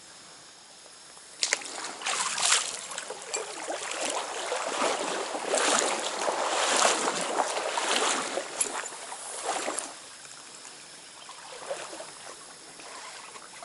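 Water splashing and sloshing in irregular surges for about eight seconds. It starts abruptly about a second and a half in, then settles back to a quieter stream rush.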